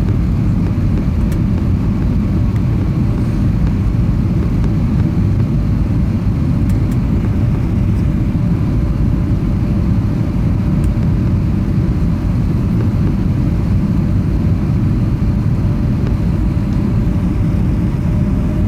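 Steady low rumble of an Airbus A320 in flight, heard inside the passenger cabin, with a faint steady hum over it.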